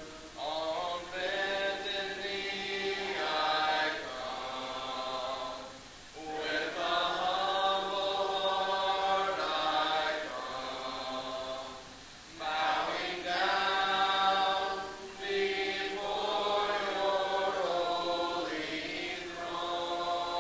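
Congregation singing a hymn together a cappella, with no instruments: long held lines, pausing briefly between phrases about six and twelve seconds in.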